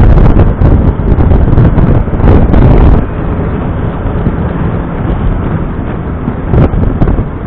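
Heavy wind buffeting on the microphone of a camera riding on a moving Smart Roadster, over the car's running and road noise. About three seconds in, the sound drops in level and turns duller.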